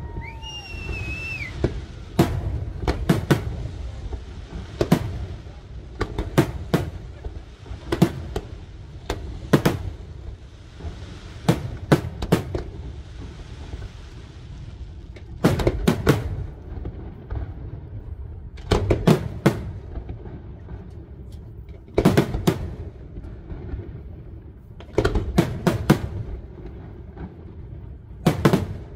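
Aerial firework shells bursting again and again: sharp bangs, some single and some in quick clusters of several, over a continuous low rumble. There is a short falling whistle about a second in.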